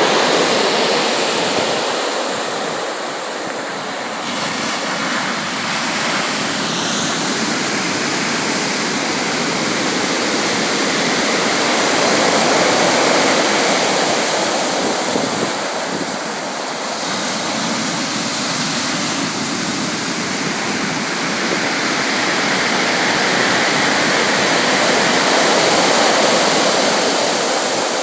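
Sea waves breaking and washing on the shore, a continuous rushing that swells and eases slowly over several seconds.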